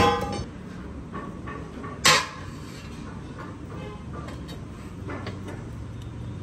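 Steel wheel rim parts clanking as they are handled: a ringing metal clang at the start, a second sharp clang about two seconds in, then a few lighter knocks.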